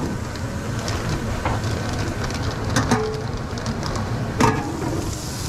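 Steady hiss of a busy commercial kitchen with a flat-top griddle cooking, broken by a few short knocks and clatters as a refrigerated under-counter drawer and its metal trays are handled, the loudest about four and a half seconds in.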